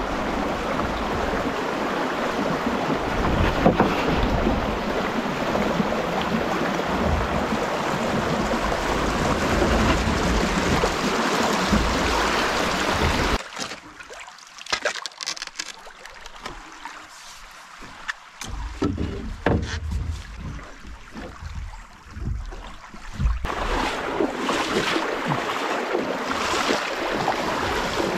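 Water rushing over a shallow rocky creek riffle beside a canoe, a steady loud rush that cuts off suddenly about halfway through. A quieter stretch follows, with scattered paddle dips and knocks against the canoe. About five seconds before the end a steady rush of moving water returns.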